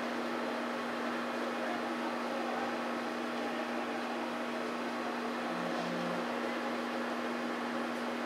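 A steady low hum over a constant even hiss, unchanging throughout, with no distinct events.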